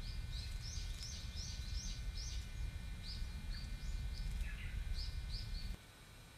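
Small birds chirping: a quick run of short, high chirps, about three a second, over a low rumble that cuts off suddenly near the end.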